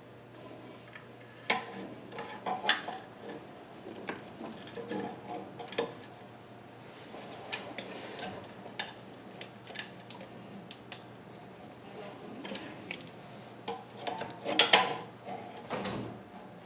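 Irregular metal clinks and scrapes from hand tools and engine parts being worked on an open engine, as a part is being fitted that will not go in. A louder cluster of clanks comes near the end.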